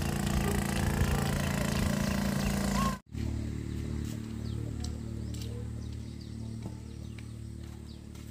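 An engine running steadily. It cuts off abruptly about three seconds in, and a quieter, lower engine hum carries on after the break.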